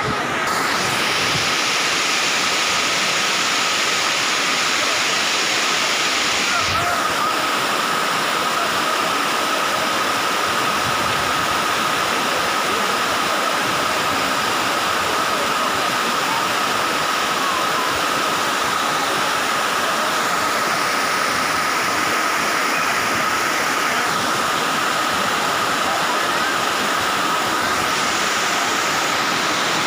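Courtallam Main Falls: water pouring down a rock face and splashing onto the rocks below, a steady, unbroken rushing.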